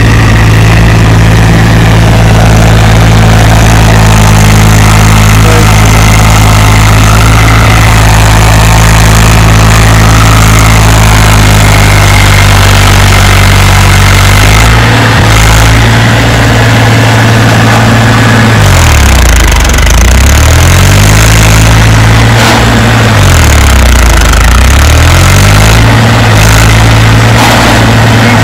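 Eicher 480 tractor's diesel engine running loud and steady under load, pulling a loaded trailer through mud. In the second half its speed twice sags and recovers.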